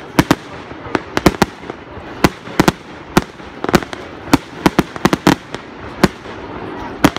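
Aerial fireworks bursting: a dense, irregular run of sharp bangs, often two or three in quick succession.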